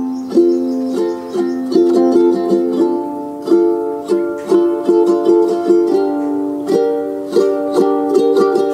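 Background music: a light instrumental tune of plucked-string notes.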